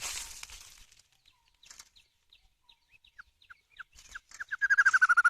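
White-rumped shama (murai batu) calling: short, spaced chirps that come faster and faster, then a loud, rapid trill of repeated notes near the end. There is a brief rustling noise at the start.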